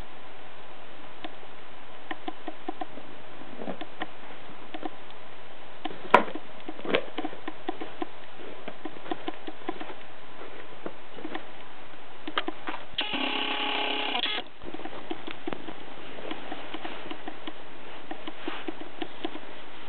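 Cat licking and chewing at catnip on the carpet close to the microphone: a steady run of small wet clicks, with a sharper click about six seconds in. About thirteen seconds in, a flat pitched tone sounds for about a second and a half.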